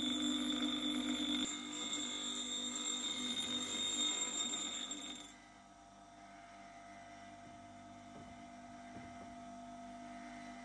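Bench grinder's abrasive wheel grinding rust off a forged steel hammer head: a loud, steady grind with a whine. About five seconds in the hammer comes off the wheel and the grinding stops, leaving the grinder's motor running freely with a much quieter hum.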